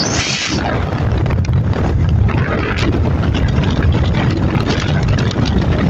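Honda Tornado 250 motorcycle's single-cylinder engine running under way, with wind buffeting the microphone in a steady, uneven rumble.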